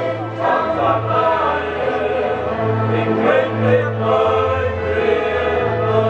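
Vietnamese Catholic choir singing the closing hymn of Mass, many voices holding long notes over sustained low accompaniment notes that change pitch in steps.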